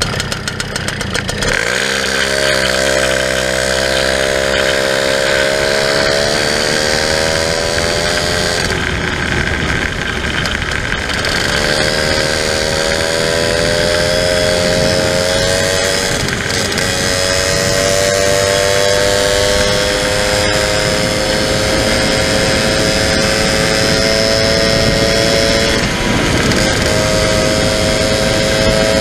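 Two-stroke moped engine running under way, geared with a newly fitted 11-tooth sprocket: its note climbs steadily, falls back three times and climbs again, with wind rushing past.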